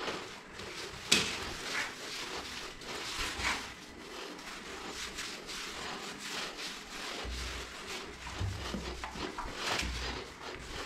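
Hands rubbing shampoo lather into a wet dog's coat: irregular wet rubbing and rustling with small clicks, and one sharp knock about a second in. A low rumble joins about seven seconds in.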